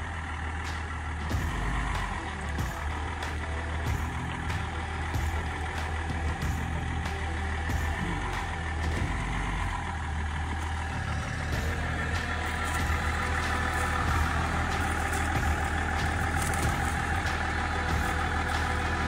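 4x4 engine running steadily at low revs while the vehicle crawls slowly over a rough, rutted track.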